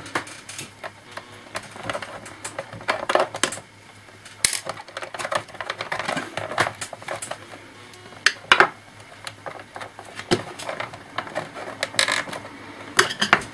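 Irregular small clicks, taps and scrapes of a small screwdriver working screws and of plastic laptop casing parts being handled, with a few sharper knocks now and then.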